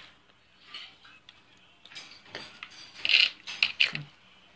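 Handling noise of fishing rods and reels being moved about: scattered light clicks and taps, busiest about three seconds in.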